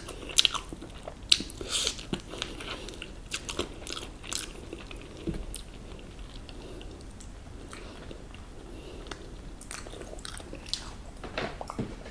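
Crunchy bites into crispy fried chicken and chewing, with a cluster of sharp crunches in the first few seconds, softer chewing in the middle, and more crunching near the end.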